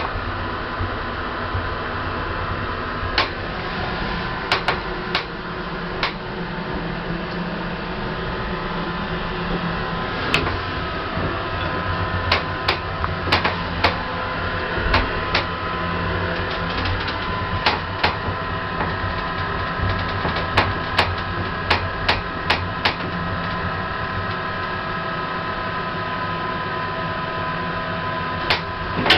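Lift machinery running with a steady electrical hum and several steady tones, overlaid by many sharp, irregular clicks and knocks.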